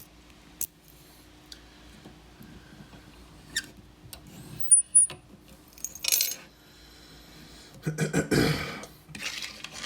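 Handling of a small brass padlock and its key: scattered metal clicks, two short high pings of metal on metal about five seconds in, and several scraping, rustling bursts near the end, the loudest a little past eight seconds.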